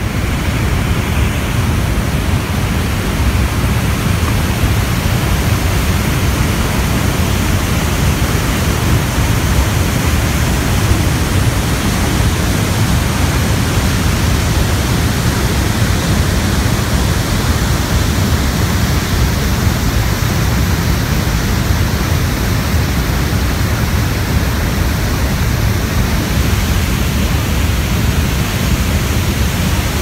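Niagara Falls pouring over the brink and crashing onto the rocks below: a loud, steady rush of falling water, heaviest in the low end, that comes in suddenly at the start.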